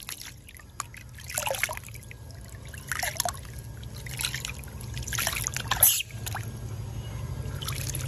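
Water splashing and trickling in a small basin as a baby macaque is washed by hand, in irregular splashes about once a second, over a steady low hum.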